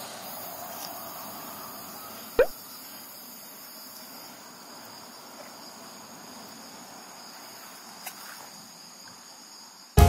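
Insects chirring steadily in a high, even drone. One short, loud squeak cuts in about two and a half seconds in, and a faint tick comes near the end.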